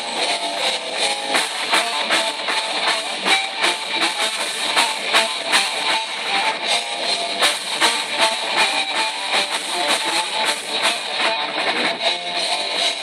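A live band plays an electric guitar and a drum kit, with many quick drum hits under held guitar notes and no singing. The recording has almost no bass.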